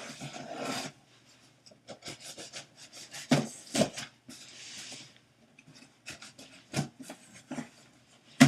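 A cardboard shipping box being opened by hand: irregular scraping, rubbing and tearing of cardboard and packing paper, with a sharp knock near the end.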